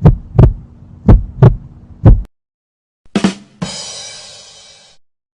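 Heartbeat sound effect: deep double thumps about once a second, cut off a little over two seconds in. After a short silence comes a brief hit, then a bright, buzzy ringing sound that fades out over about a second and a half.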